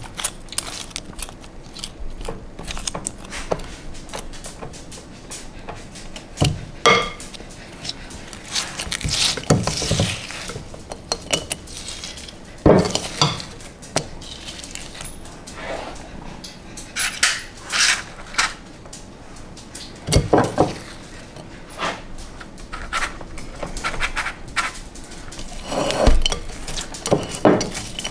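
A spoon scraping and knocking against the inside of a mixing bowl as it scoops out a sticky chocolate and cornflake mixture, in irregular clinks and scrapes.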